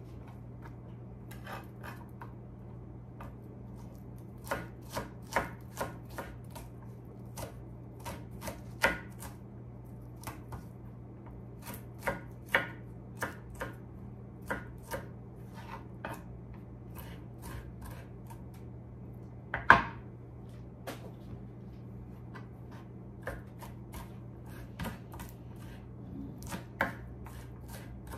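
Chef's knife chopping garlic cloves on a wooden cutting board: irregular knocks of the blade on the board in short runs, one sharper knock about two-thirds of the way through. A steady low hum lies underneath.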